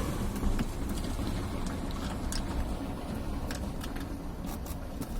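Light clicks and taps of a Phillips screwdriver working a small screw out of a car's plastic door trim panel, scattered over a steady low rumble.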